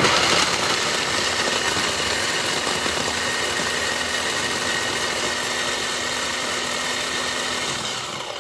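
Electric mini food chopper running steadily, its spinning blades chopping fresh chillies and garlic cloves. It starts suddenly and begins to wind down near the end.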